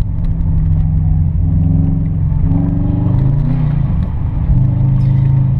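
Car engine running under load, its revs rising and falling briefly about halfway through before settling back to a steady low drone.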